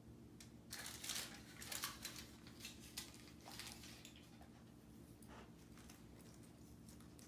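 Aluminium foil crinkling and crackling as a dog noses and chews at a foil-wrapped treat package, in a burst of about three seconds starting near the beginning, then a few faint crackles.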